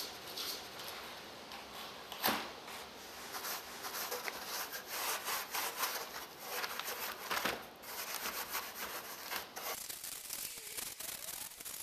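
Brush scrubbing and dabbing black tile grout onto a cement-coated Styrofoam rock background: a continuous scratchy rubbing made of many short strokes, with two sharper knocks, one about two seconds in and one past seven seconds.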